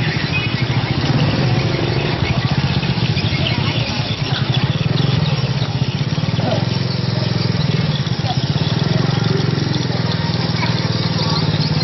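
Small motorcycle engine running steadily close by, with people talking in the background.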